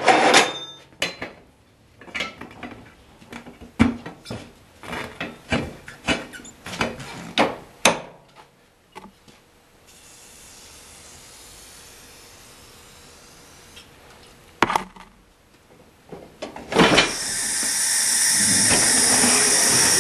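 Metal clanking and knocking of a manual tire-changing machine and tire irons as a tire is worked off a rim, in a quick irregular run of strikes. Near the end a loud steady rushing hiss starts and keeps on.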